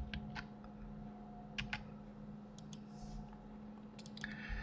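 Computer mouse and keyboard clicks, a few at a time in close pairs with pauses between, over a faint steady hum.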